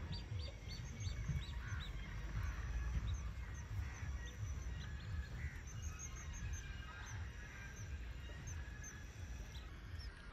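Wild birds chirping and calling: quick runs of short, high chirps at the start and again about six seconds in, with a few lower calls between. Under them is a gusty low rumble of wind on the microphone.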